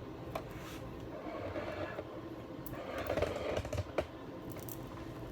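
Light clicks and rustling from handling the work at a sewing machine: fabric and lace being shifted under the presser foot, with a sharp click near the start and another about four seconds in.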